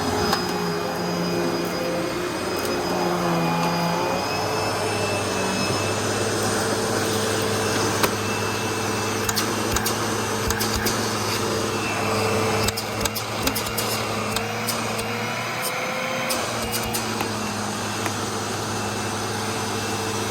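Hoover Pet Rewind Legacy upright vacuum, fitted with a replacement motor, running steadily while vacuuming. Its tone shifts a few seconds in and again past the middle, and scattered sharp clicks come through in the middle stretch.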